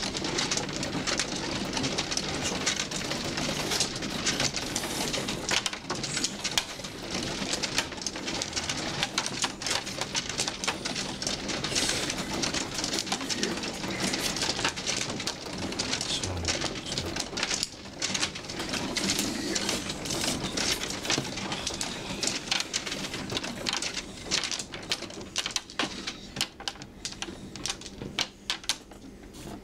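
Mahjong tiles clicking and clacking continuously as players take tiles from the walls and set them down on the felt table, thinning out somewhat near the end.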